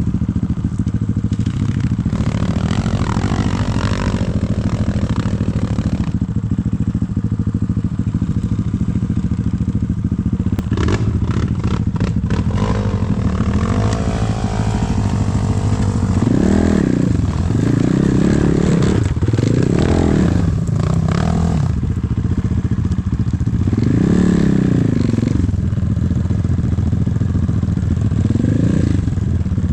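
Enduro motorcycle engine running steadily, then revved in a series of throttle bursts that rise and fall in pitch through the second half, with a patch of clattering knocks about halfway through.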